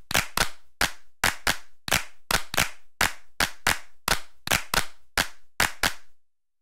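A rhythmic run of sharp clap-like clicks, about three to four a second and often in quick pairs, that stops about six seconds in.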